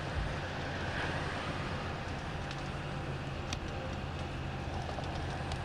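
Steady engine drone and road noise heard from inside a moving tour bus, with a few faint clicks and rattles.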